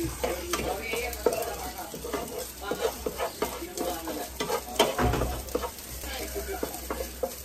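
Chopped meat frying in a pan with a steady sizzle, stirred so that the utensil scrapes and clicks against the pan again and again.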